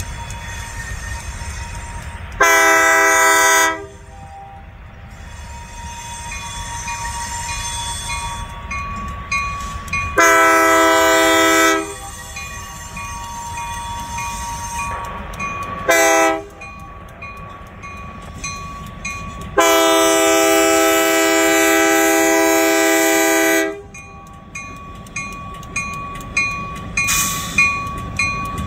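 Diesel locomotive horn sounding the grade-crossing signal: two long blasts, a short one, then a final long one, with the locomotive's engine rumbling low beneath. Between the blasts a faint ringing repeats at an even pace.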